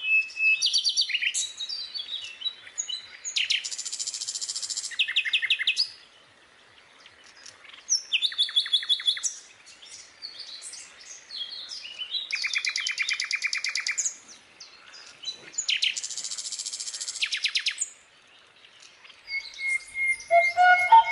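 Bird chirps and rapid trills recurring in a similar pattern about every four seconds, laid over the video as part of an added soundtrack.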